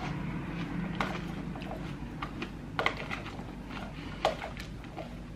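Eating a crunchy cucumber salad: chewing and a utensil clicking against a plastic container, in small irregular clicks over a faint steady hum.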